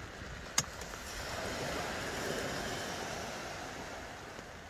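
Small waves washing up a sandy beach: the wash swells about a second in and fades away over the next few seconds. A single sharp click comes just before.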